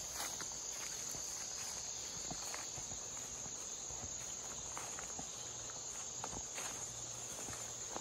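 Footsteps swishing through tall grass and weeds, with scattered rustles of brushed vegetation, over a steady high-pitched chorus of insects.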